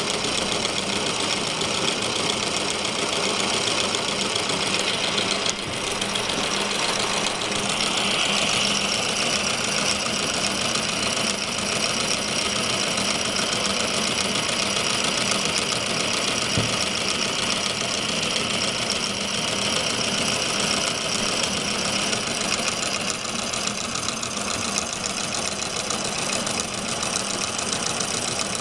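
Homemade brass-and-steel model steam engine running fast and steady, a rapid, even mechanical clatter from its piston, crank and flywheel. A brighter high-pitched tone joins in about eight seconds in.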